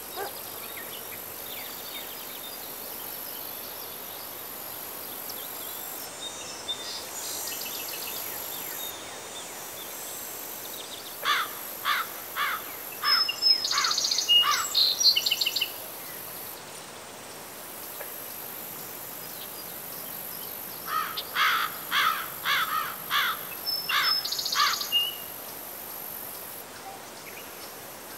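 Outdoor field ambience: a steady high drone of insects, with a bird calling in two runs of quick repeated notes, each about four seconds long, one near the middle and one later on.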